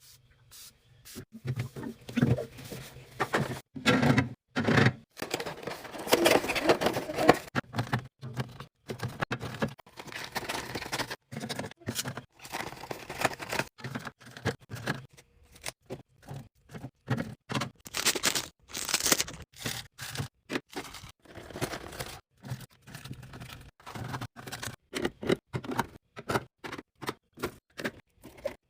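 Food packaging and plastic containers being handled while a fridge is restocked: a quick run of short knocks, rustles and scrapes. Each run stops abruptly, with many sudden breaks between them.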